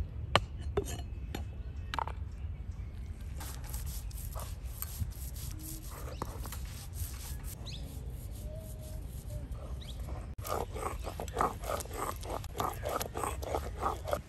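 Mustard seed being ground on a flat stone slab with a hand-held grinding stone (sil-batta). Scattered knocks come first; from about ten seconds in there is an even, rhythmic rasping scrape at about three strokes a second.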